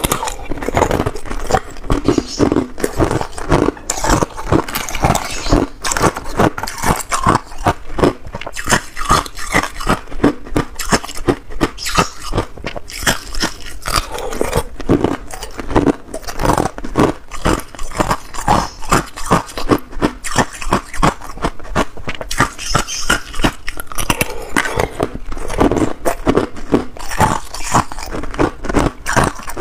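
Hard, clear ice cubes being bitten and chewed, close to a clip-on microphone: a dense, continuous run of sharp crunches and cracks.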